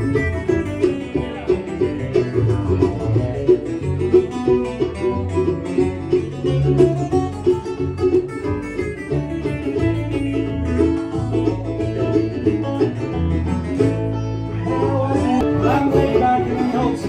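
Bluegrass band playing an instrumental break, a banjo picking over guitar and a steady bass line.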